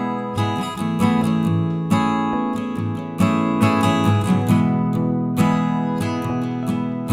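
Background music: acoustic guitar strumming and picking chords, a new note or chord struck every half second or so.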